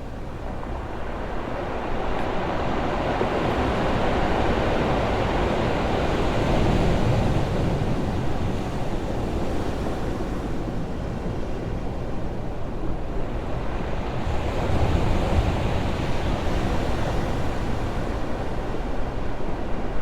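Ocean surf breaking on rocks: a continuous wash of waves that swells and eases over several seconds, with two broad peaks.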